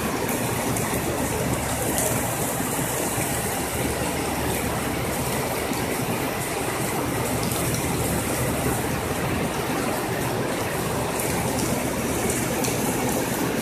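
Heavy rain pouring steadily, with the diesel engine of a CC 201 diesel-electric locomotive running beneath it as the locomotive rolls slowly past.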